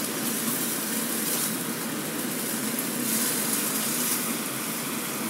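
Honey-soy sauce sizzling and bubbling steadily in a granite-coated wok around pieces of deep-fried pork as it boils down to thicken, with a spatula stirring through it.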